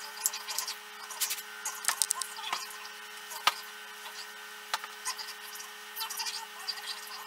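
Hands handling braided cable sleeving and wires, making irregular rustling and small clicks, with one sharper click about three and a half seconds in. A steady low hum runs underneath.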